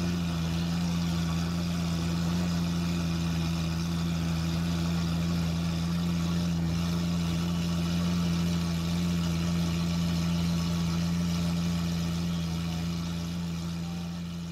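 Lamborghini Aventador's 6.5-litre V12 idling steadily through its exhaust, with no revving; the sound fades out near the end.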